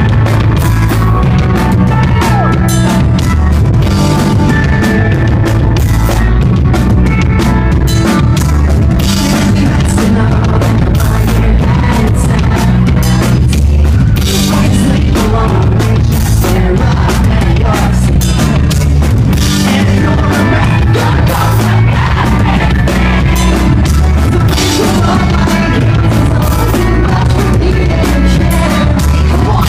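Pop-punk band playing live at full volume: drum kit, electric guitars and bass.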